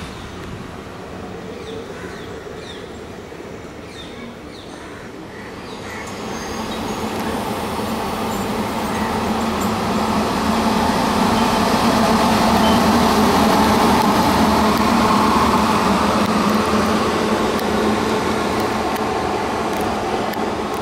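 An electric-locomotive-hauled passenger train on the move, with an Indian Railways WAG-9H electric locomotive and its coaches. A steady hum of the train grows louder from about six seconds in and stays loud.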